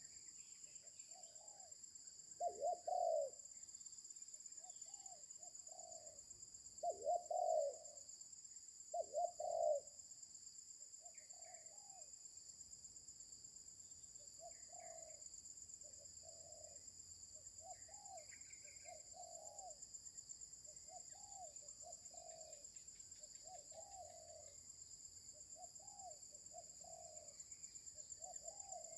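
Spotted dove (terkukur) cooing over and over in a coarse voice: a few loud coo phrases in the first ten seconds, then softer coos repeating steadily. A steady high-pitched whine runs underneath.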